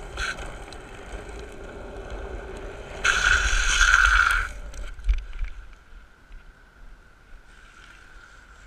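Skateboard wheels rolling fast on asphalt with wind on the microphone, then about three seconds in a loud hissing slide of the wheels across the tarmac that lasts about a second and a half and cuts off; the rolling is quieter afterwards.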